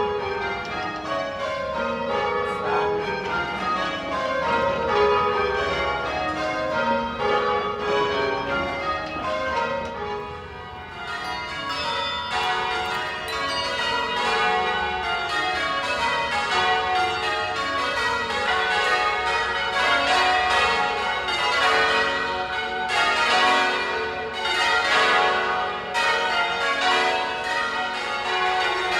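Church tower bells rung in rounds by a team of ringers pulling ropes: each run of strikes steps down in pitch from the highest bell to the lowest, over and over. The bells drop back briefly about ten seconds in, then carry on.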